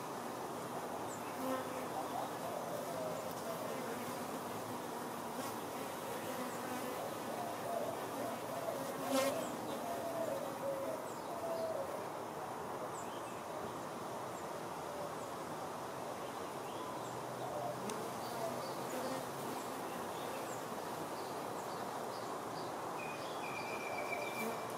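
Honey bees buzzing as they fly around the hive, the wingbeat drone swelling and fading as single bees pass close, over a steady background hiss. A single sharp click comes about nine seconds in.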